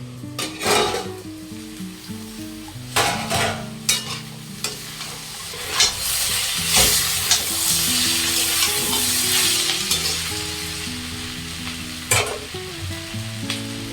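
Vegetables sizzling as they stir-fry in oil in a pan, loudest in the middle, while a spatula scrapes and knocks against the pan several times.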